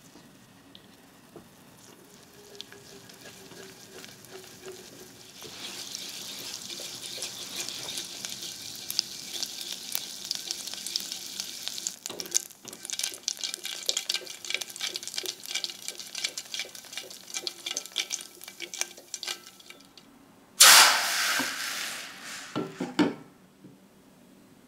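Butter melting and browning in a small saucepan while a silicone spatula stirs it. It is quiet at first, then sizzles and crackles steadily once it foams. Near the end comes a loud hiss of about two seconds as the hot pan is set into a glass bowl.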